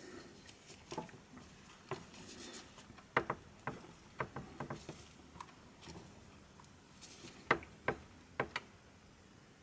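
Soldering iron tip working thin enamelled wire ends in a tin of rosin flux to tin them: a scatter of sharp little clicks and taps, several in quick succession around the middle and again near the end, with brief faint hissing of the hot rosin.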